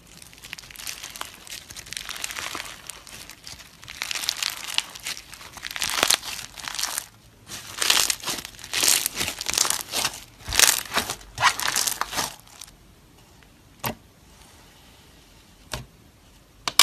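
Crunchy, textured slime squeezed, folded and pulled apart by hand, giving a dense run of crackling and crinkling. After about twelve seconds it goes quiet apart from a few single pops near the end.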